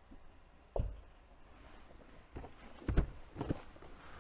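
A few knocks and clicks from a DJI Agras T40 remote controller being handled on a table as its fold-out kickstand is set; the loudest knock comes about three seconds in.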